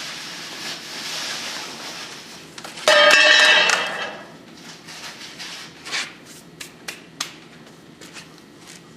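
Metal scraping against metal with a ringing tone for just under a second, about three seconds in, then several light knocks, as metal parts of a homemade sawdust furnace are handled; a hiss runs under the first few seconds.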